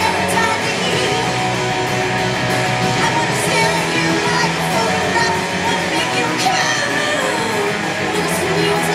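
Punk rock band playing live: electric guitars, drums with cymbal crashes, and a singer.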